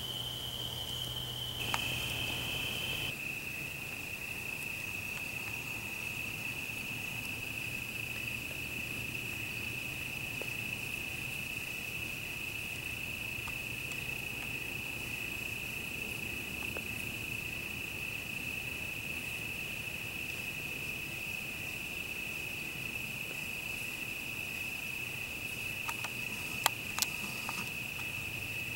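Crickets trilling in one steady, unbroken high note, with a second, slightly higher trill that stops a few seconds in. A couple of sharp clicks near the end.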